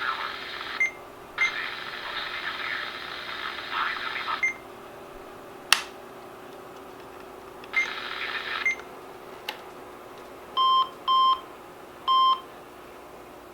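RadioShack 12-253 weather radio: static-like hiss from its speaker cuts in and out several times, with a sharp click in between. Then three short, high beeps sound near the end as its keys are pressed.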